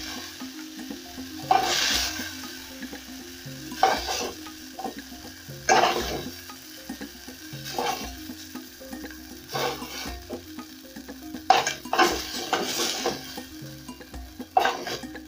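Browned goat meat sizzling as it fries in a metal pot, with metal tongs scraping and clinking against the pot every second or two as the pieces are lifted out.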